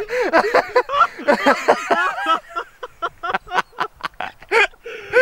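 People laughing hard and without a break, with a run of quick, panting bursts of laughter near the middle.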